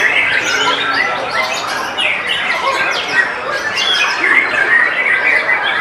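White-rumped shama (murai batu) in song: a dense, unbroken run of quick whistles and chirps, with other caged birds singing around it.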